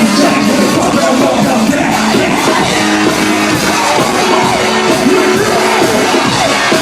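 Loud live rap concert music played through a venue PA, with yelled vocals over the beat.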